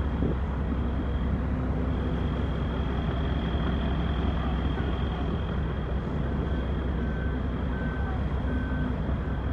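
Heavy diesel equipment running with a steady low rumble. From about six seconds in, a vehicle's reversing alarm beeps faintly, about three beeps every two seconds.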